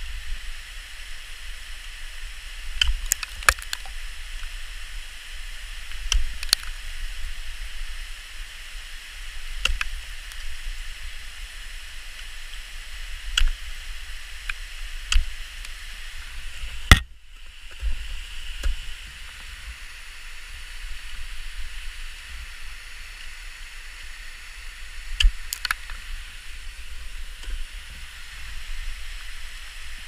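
Ice axe picks and crampon points striking into waterfall ice: sharp single knocks a few seconds apart, the loudest about halfway through, over a steady hiss.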